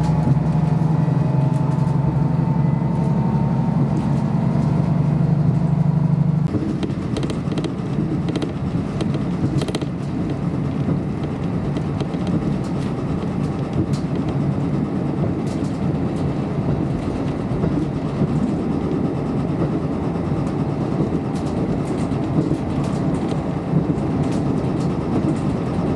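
Inside a KiHa 54 diesel railcar running: the diesel engine's steady drone stops abruptly about six seconds in, leaving the rumble of the wheels on the rails with scattered light clicks.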